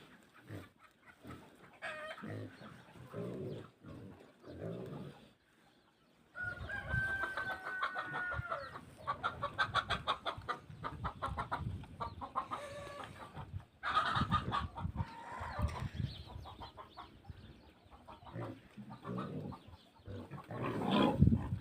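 Farmyard chickens clucking in short scattered calls, then busier, faster clucking from about six seconds in, with a drawn-out hen call shortly after. Near the end, louder low pig grunts come in.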